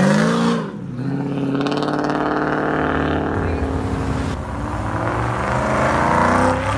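Car engines accelerating past. A rising engine note falls away sharply about half a second in, then a steady engine note follows and climbs again near the end as another car pulls away.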